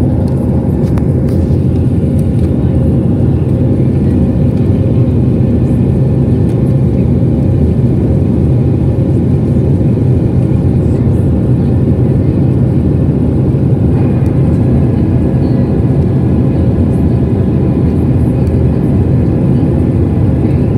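Steady roar of a Boeing 737-700 in flight, heard from a window seat in the cabin: the CFM56-7B turbofans and rushing airflow make a deep, even rumble with a faint hum over it.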